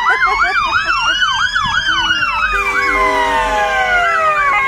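Several emergency-vehicle sirens sound together, from an ambulance and a fire engine. One is a fast yelp sweeping up and down about three times a second, which drops out about three seconds in. Under it, slower wails rise and then fall.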